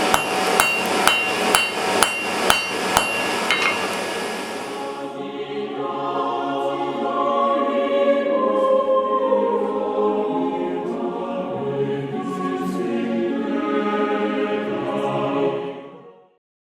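Hammer blows ringing on an anvil, about seven strikes half a second apart over the first three seconds. Then a choir sings, fading out near the end.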